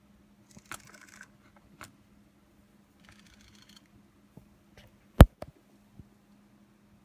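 Small 12 V DC geared motor whirring briefly twice, each run about half a second, as the motor driver pulses it, with light clicks of handling and one sharp, loud click about five seconds in.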